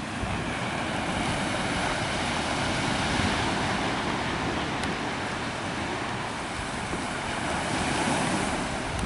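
Ocean surf breaking on a sandy shore, a steady wash of waves.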